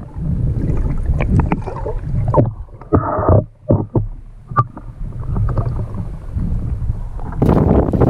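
Muffled sloshing and knocking of lake water heard from just below the surface, with many short clicks and a brief louder gush about three seconds in. Near the end a louder rush of wind and water takes over as the sound comes back above the surface.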